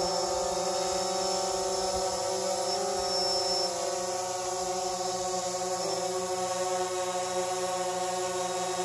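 Quadcopter drone hovering, its propellers giving a steady buzz of several held pitches that waver slightly as it holds position.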